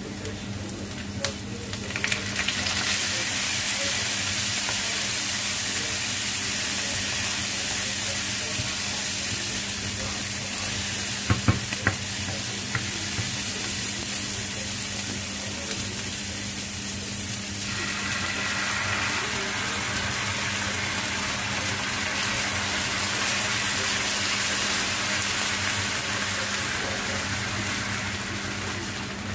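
Garlic, onions and chopped tomatoes sizzling in hot oil in a nonstick frying pan, the sizzle getting louder about two seconds in as the tomatoes go in. A wooden spoon stirs, knocking on the pan a few times about halfway through. Near the end water is poured in.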